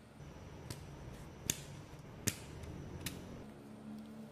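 Small plastic building-block wheels clicking as they are pressed onto the axle pins of a toy truck chassis: four sharp clicks about 0.8 s apart, the middle two loudest.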